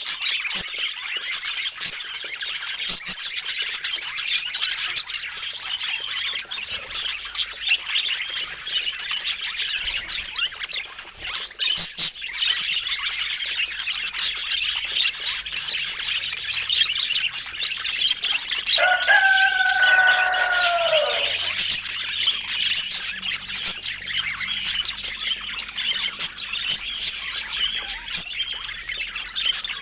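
Budgerigars chattering and warbling continuously in a dense, busy stream of chirps and squawks. About two-thirds of the way through, a lower, drawn-out call falls in pitch.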